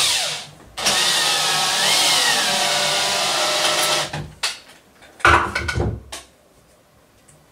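Cordless drill running into a hardwood aquarium root: a short spurt, then about three seconds of steady drilling, with the motor pitch rising and sagging under load. A heavy knock and handling noise follow about five seconds in.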